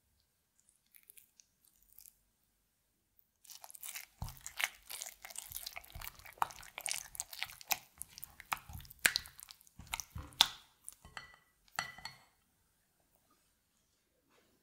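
Silicone spatula stirring thick Greek yogurt with grated cucumber and dill: wet squelching and scraping with many sharp clicks. It starts about three seconds in and stops shortly before the end.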